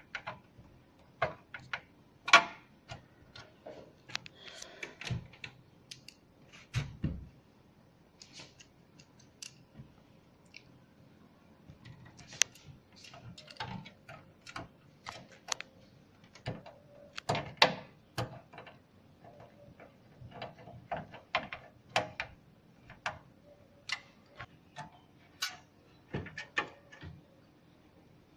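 Screwdriver and screws clicking and tapping against a PC case's metal slot bracket as a graphics card is screwed in: irregular sharp clicks and ticks, with a dull thump about seven seconds in.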